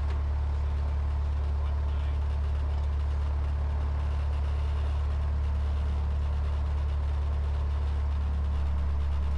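Cessna 152's four-cylinder Lycoming O-235 engine and propeller running steadily on the ground, a constant low drone heard inside the cockpit.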